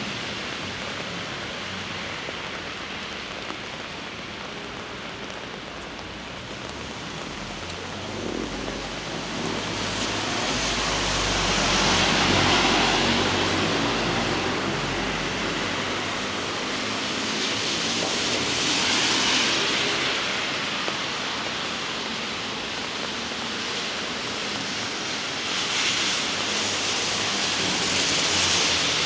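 Heavy rain falling steadily, with traffic swishing past on wet roads several times. A low engine rumble passes by about a third of the way in.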